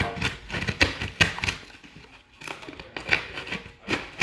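Cardboard shipping box and its packing being handled and pried at by hand: irregular crackling, scraping and sharp clicks, the loudest about a second in.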